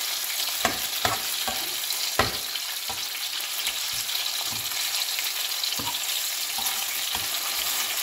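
Strips of beef searing in hot oil in a frying pan, a steady sizzle, while a metal utensil turns the pieces, making scattered clicks and scrapes against the pan; the sharpest click comes about two seconds in.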